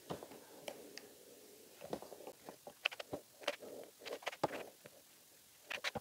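Brand-new Dollar Tree 3x3 puzzle cube being turned by hand: a quick, irregular run of plastic clicks and scratchy layer turns from a stiff, cheap cube.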